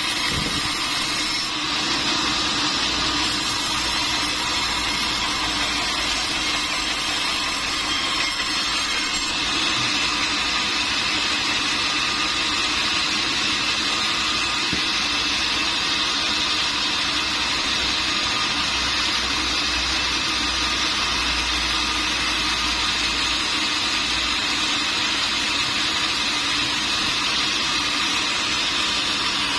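Sawmill machinery running steadily, a constant mechanical noise with a high, even whine.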